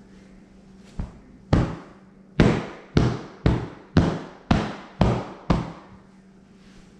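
Nine thumps, about two a second, as a foam pillow inside a fabric ottoman-top cover is slapped and pounded into shape to settle it in the cover.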